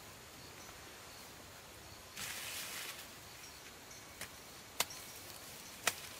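Dry corn plants rustling about two seconds in, then sharp snaps, three in the second half, as corn ears are broken off the stalks by hand.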